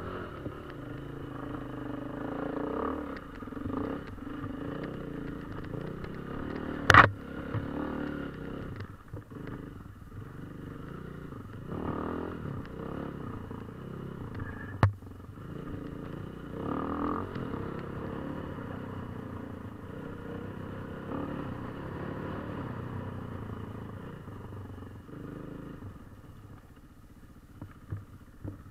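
KTM 450 EXC's single-cylinder four-stroke enduro engine being ridden hard off-road, its revs rising and falling continually. Two sharp knocks cut through, one about seven seconds in, which is the loudest moment, and another about fifteen seconds in.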